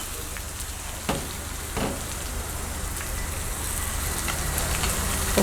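Ground onion-tomato paste sizzling in hot oil in a pan, a steady hiss, with a couple of faint utensil knocks about one and two seconds in.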